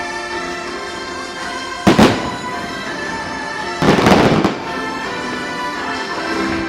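Fireworks shells bursting twice, a sharp bang about two seconds in and a longer burst of bangs about four seconds in, over the fireworks show's music.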